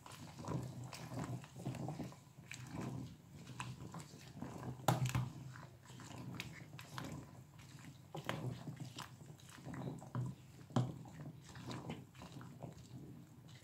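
A wooden spoon stirring and pressing pandan leaves blanching in a stainless-steel pot of hot water: irregular knocks, scrapes and crunchy rustles, the loudest knocks about five and eleven seconds in, over a low steady hum.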